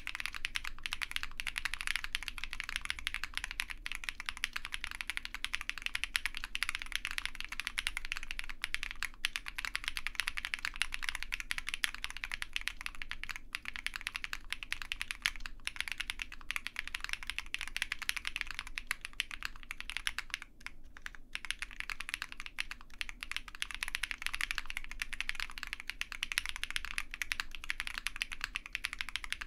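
Continuous typing on an OwLab Mr Suit custom mechanical keyboard with lubed Zaku switches, GMK keycaps, a POM plate and PE foam only: a dense run of keystroke clacks, broken by a short pause about two-thirds of the way through.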